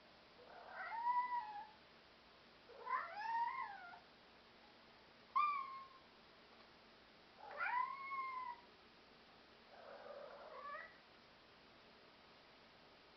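European Shorthair cat meowing five times, a second or two apart. Each meow rises and then falls in pitch, and the last one is fainter.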